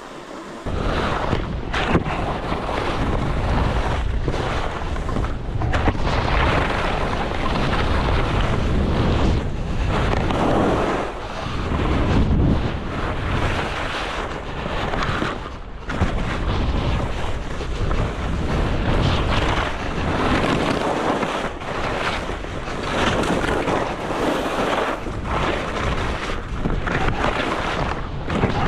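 Wind rushing over a GoPro's microphone, partly muffled by small furry windscreens, while skiing fast downhill, mixed with skis running on groomed snow. It starts abruptly about a second in and swells and dips in uneven surges.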